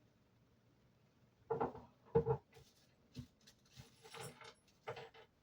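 Irregular knocks and clunks from a window air conditioner unit and its fittings being handled and fitted in place, with a short rustle about four seconds in.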